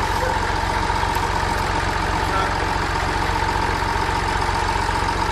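Farm machine's engine running steadily at an even speed, with a steady high whine over the engine sound.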